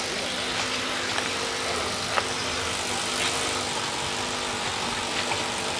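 Small motorcycle engine running steadily, with one sharp click about two seconds in.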